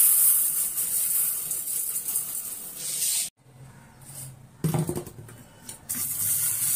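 Dry red lentils (masoor dal) pouring from a plastic container into a steel bowl, a dense rattling hiss that stops abruptly a little over three seconds in. There is a brief clunk about five seconds in. About six seconds in, tap water starts running into the steel bowl of lentils in a steel sink.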